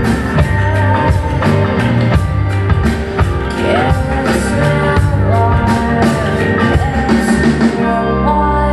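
Live rock band performing: a woman sings over a drum kit and sustained band chords. The drums stop near the end, leaving a held chord.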